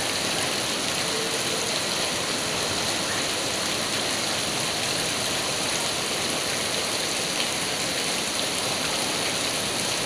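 Heavy rain falling steadily, mixed with the rush of flowing floodwater: an even, unbroken wash of water noise.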